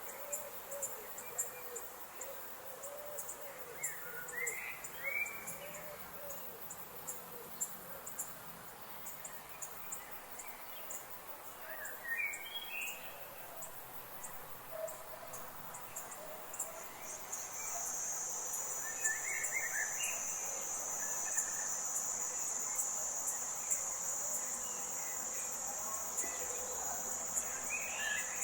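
Forest ambience of insects: a rapid high clicking throughout, joined about two-thirds of the way in by a steady high insect drone. Short bird calls come about every eight seconds, four times.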